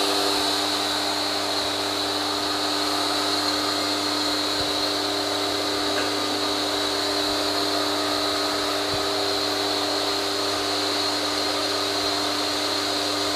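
Bosch Easy Aquatak 120 electric pressure washer running steadily while it sucks water up its suction hose from a bucket: it is still priming, so it runs louder and barely sprays until it has filled and switches itself off.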